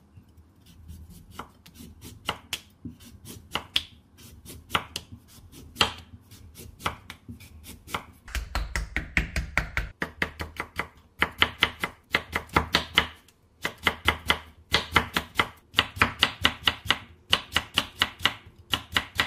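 Chef's knife cutting a Korean radish on a wooden cutting board. For the first eight seconds or so it makes single slices about a second apart, then it breaks into quick runs of rapid chopping strokes as the radish is cut into thin strips.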